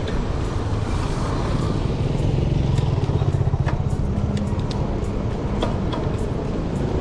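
Wind rumbling on the microphone of a bicycle riding fast down a paved road, with an engine hum from passing motor traffic, strongest in the middle, and a few light clicks.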